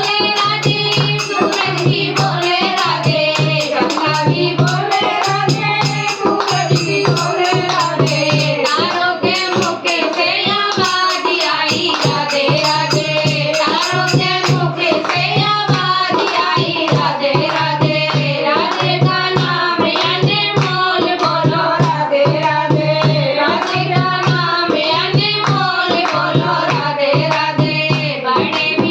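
Haryanvi devotional bhajan: a voice sings a melody over a steady low beat that comes about once a second, with percussion.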